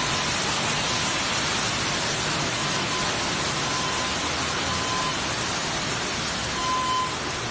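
Water gushing steadily from a burst pipe and pouring through the ceiling into a flooded house after a hard freeze. A faint high beep sounds now and then.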